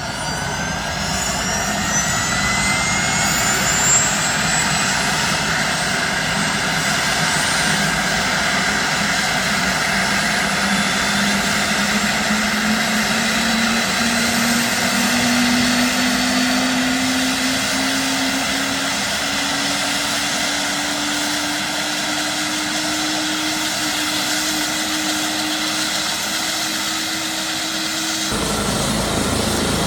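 Airbus H145 helicopter's turbine engines and rotor running steadily, with a high turbine whine rising in pitch over the first few seconds and a lower tone slowly climbing through the second half. The sound changes abruptly shortly before the end.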